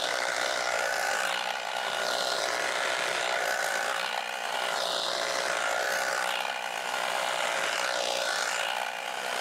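Battery-powered handheld tea harvester running while cutting tea shoots: a steady electric motor whine with its reciprocating cutter blades.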